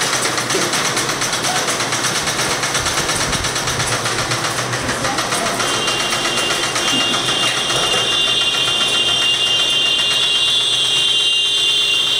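Several sewing machines running at once, making a fast, even mechanical clatter. About halfway through, a steady high-pitched whine joins it and becomes the loudest sound.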